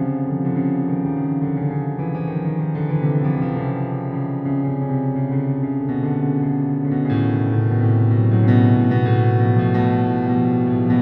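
Instrumental keyboard music: sustained chords that change every second or two, with a deeper bass note coming in about seven seconds in.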